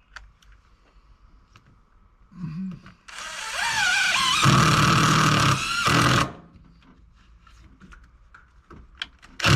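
A power drill runs for about three seconds, driving a screw, its pitch rising as it comes up to speed and then holding. A sharp knock comes near the end.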